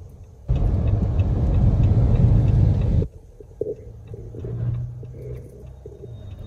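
Car driving through floodwater on the road, heard from inside the cabin: a loud, steady rush of water sprayed against the wheels and underbody starts suddenly and cuts off sharply about three seconds in. After that there is only the quieter low hum of the car rolling on a wet road.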